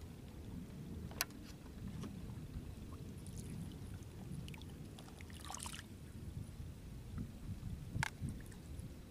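Low, steady outdoor rumble with small water sounds, broken by a sharp click about a second in and another near the end. A short splash around the middle fits a pole-fishing float and baited hook being recast into the lake.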